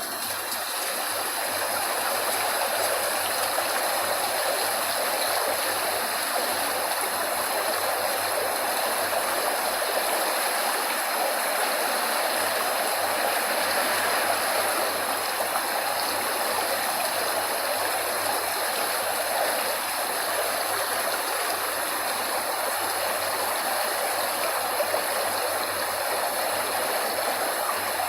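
Steady rushing of flowing water, like a stream, an even hiss with no breaks or changes.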